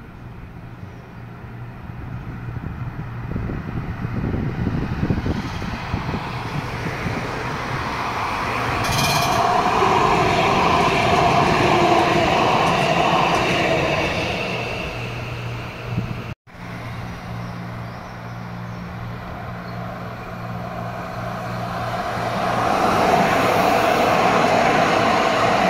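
Two Stadtbahn light-rail trains passing one after the other on ballasted track, their wheels running on the rails. The first grows louder to a peak as it goes by, the sound cuts off abruptly, and a second train then builds up towards the end.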